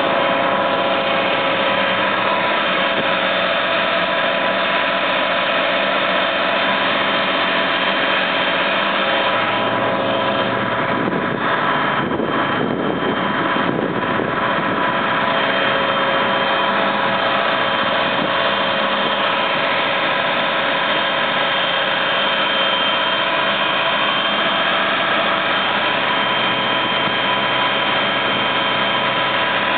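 Cable-drawn car ferry's engine running steadily under way: a loud, even drone with several fixed whining tones held throughout.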